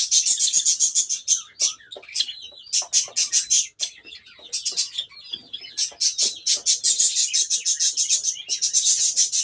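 Pet Java sparrows chirping: fast runs of short, high notes, about eight a second, broken by brief pauses.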